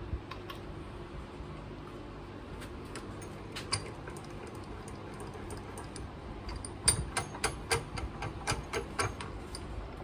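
Bench vise being worked by hand: scattered metallic clicks and clinks, then a quick run of about ten sharp clicks a few seconds before the end as the handle is turned.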